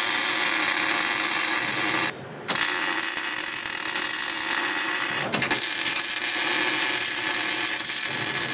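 Electric arc welding crackling steadily as the spider gears are welded to the carrier of a Chevy 10-bolt differential, locking it into a spool. The arc breaks off for about half a second around two seconds in, then strikes again.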